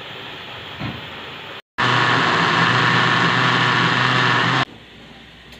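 Electric mixer grinder running steadily as it grinds boiled spinach into a purée. It starts suddenly about two seconds in and cuts off about a second before the end. Before it comes a quieter steady hiss from the pot of spinach boiling.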